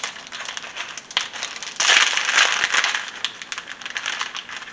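Plastic wrapper of a pack of sliced cheese crinkling and crackling as it is pulled open, loudest for about a second just under two seconds in.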